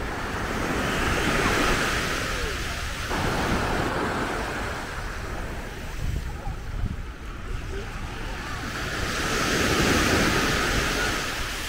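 Small sea waves breaking and washing up a sandy shore, the surf swelling and fading about three times, over a low rumble of wind on the microphone.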